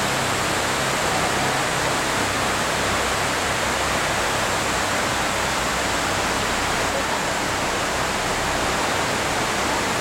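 Steady, unbroken rush of the 9/11 Memorial pool's waterfall: a sheet of water falling down the pool walls into the basin.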